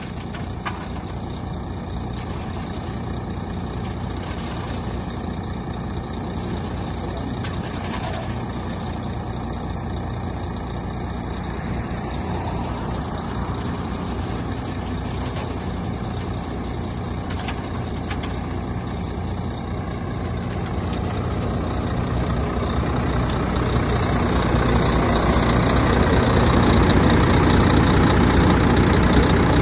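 Volvo FM12 concrete mixer truck's 12-litre inline-six diesel running steadily, growing louder about two-thirds of the way through and then holding.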